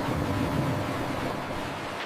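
Water rushing steadily through an apple flume channel, starting suddenly and easing off slightly toward the end.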